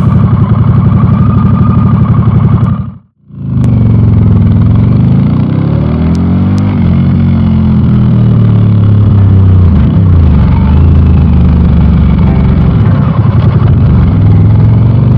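Harley-Davidson Pan America's Revolution Max 1250 V-twin running under way through a Screaming Eagle exhaust. The sound cuts out briefly about three seconds in, then the engine note rises and falls as the bike accelerates and eases off.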